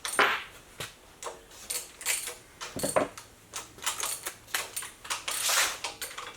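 Scattered light metallic clicks and clinks of small steel engine parts and hand tools being handled while a small-block V8 is taken apart, with a longer scraping rustle about five seconds in.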